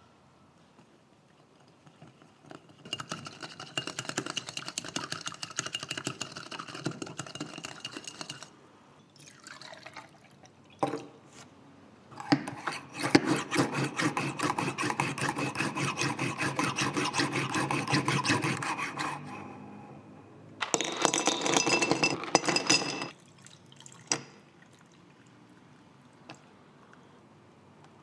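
Liquid being poured, in three spells of several seconds each, with a few knocks between them.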